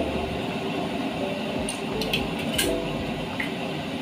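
Dark soy braising liquid boiling in a large metal pot, a steady bubbling rush, with a few light clinks about halfway through.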